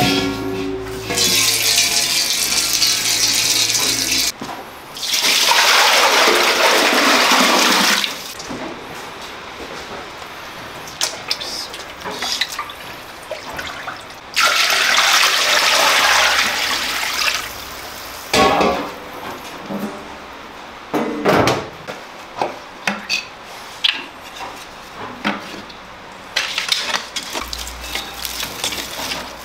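Water gushing from a kitchen tap into a stainless steel bowl and being poured, in three long bursts of a few seconds each. Scattered knocks and clatters of handling come in between.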